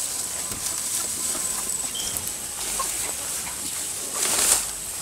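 Chickens clucking softly in their pen, with a brief noisy rustle about four seconds in.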